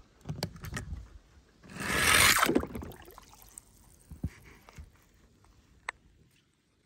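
Die-cast toy car sliding down a plastic track: a scraping rush about two seconds in that lasts about a second, with light clicks and taps around it and a sharp tick near the end.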